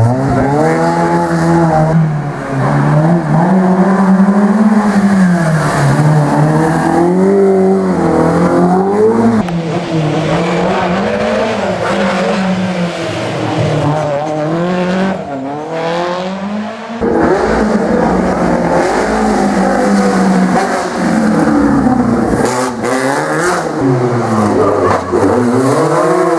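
Historic racing car engines revving hard, the pitch climbing and dropping again and again with gear changes and lifts off the throttle. About two-thirds of the way through, the sound cuts abruptly to another car, also revving.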